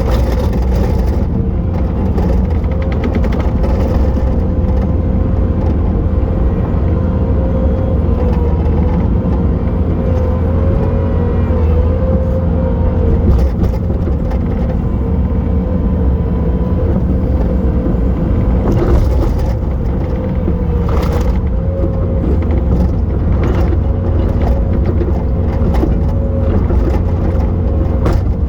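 Bobcat T870 skid steer's diesel engine running steadily under load, a deep rumble with a steady hydraulic-type whine over it that dips slightly now and then. A few short knocks sound partway through.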